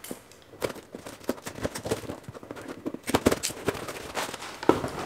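Cardboard shipping box being opened by hand: irregular crackles, knocks and rustles of the cardboard and packing, with the busiest cluster a little past the middle.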